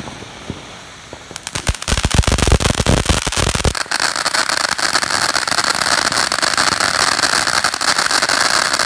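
Ground fountain fireworks spraying sparks and crackling. About a second and a half in, a rapid run of loud pops and bangs starts, heaviest for about two seconds, then gives way to a steady dense crackle.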